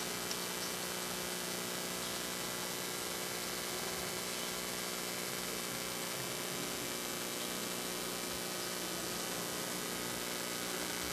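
Steady electrical mains hum with a stack of buzzing overtones over an even hiss, unchanging throughout.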